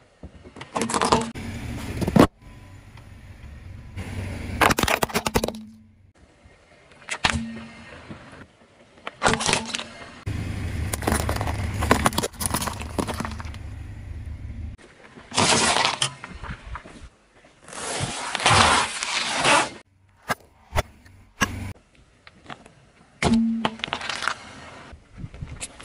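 A car tyre rolling over and crushing a run of objects one after another: plastic hair clips, cucumbers with plastic toy figures on them, and toothpaste tubes. A string of short crushing sounds with low tyre rumble under some of them, each cut off abruptly where the next begins.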